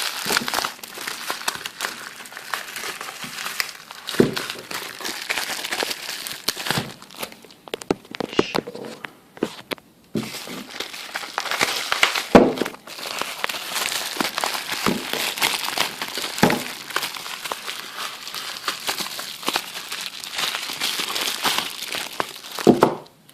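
Packaging crinkling and rustling as a small parcel is unwrapped by hand, with scattered sharp clicks. There is a short lull about ten seconds in.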